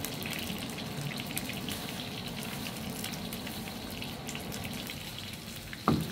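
Battered pork pieces frying in hot oil in a carbon-steel wok: a steady sizzle with fine crackling. Near the end the steel ladle knocks once against the wok.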